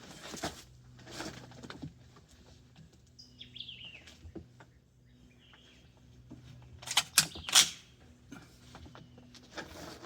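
Three quick suppressed shots from a KelTec Sub-2000 firing subsonic 5.7x28 ammunition, sharp reports a fraction of a second apart, about seven seconds in. A bird chirps a few seconds earlier.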